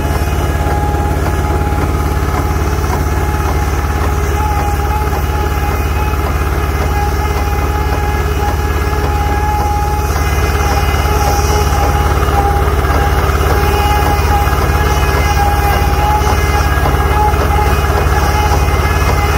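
Plaster pump's engine running steadily at a constant speed as it feeds plaster through the hose to the spray gun, getting slightly louder about halfway through.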